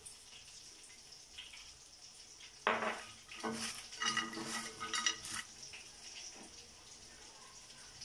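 Seasoned french fries being tossed by hand on a ribbed glass plate: a few scrapes and clinks against the glass, the loudest about three seconds in and more up to about five seconds in, over quiet room tone.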